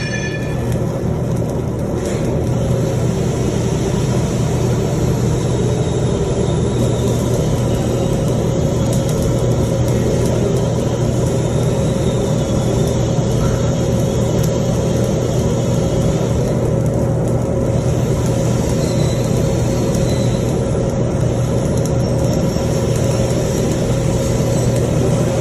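Stick welding arc burning steadily during an overhead 4G weld, a continuous crackling sizzle over a steady low hum.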